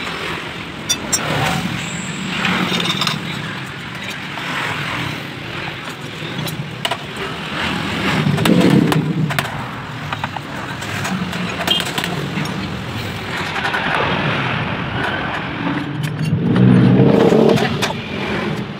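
Passing motor vehicle traffic, with two louder passes, about halfway and again near the end, over a steady background and scattered sharp clicks.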